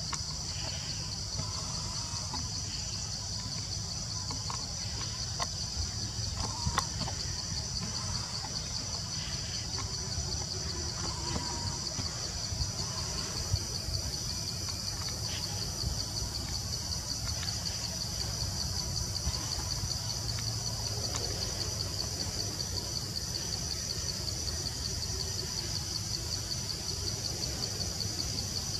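Forest ambience: a steady high-pitched insect drone over a low rumble, with a few faint chirps and small clicks.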